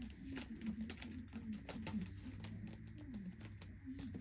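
Light clicks and taps of nail-polish-strip packets being handled and set down, scattered and irregular, over a faint low wavering hum.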